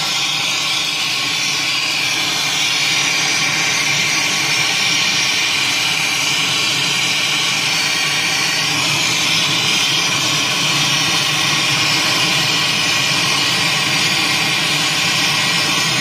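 Brazing torch flame running with a steady, loud hiss while a copper refrigerant line joint on an air conditioner is heated and brazed.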